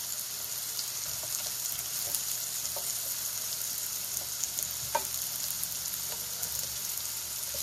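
Delicata squash slices sizzling steadily in oil in an electric skillet as they brown on the first side, with a few brief clicks, the clearest about three and five seconds in, as a slotted spatula lifts and nudges the slices.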